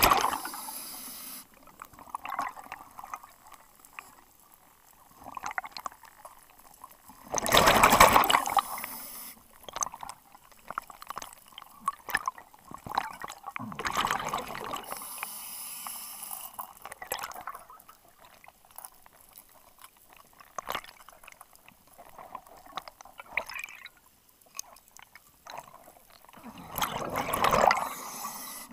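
Underwater scuba regulator breathing: a loud rush of exhaled bubbles every several seconds, three in all, with a fainter high hiss after two of them. Scattered small clicks and rustling fall between the rushes.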